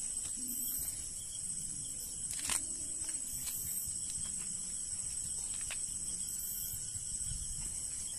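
A steady, high-pitched chorus of night insects such as crickets, with a few faint clicks.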